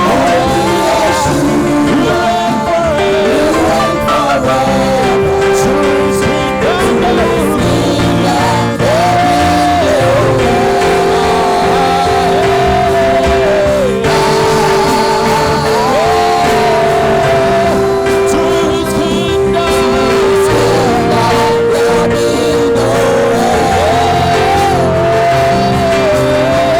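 Music with a singing voice: a melody with long held notes over sustained chords and a bass line.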